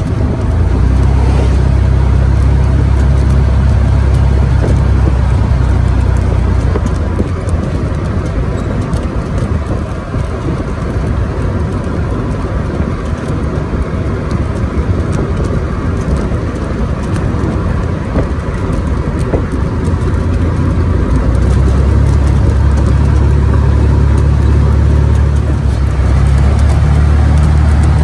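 Vintage military vehicle driving on the road: a steady engine and road rumble that eases off about seven seconds in and grows heavier again after about 21 seconds.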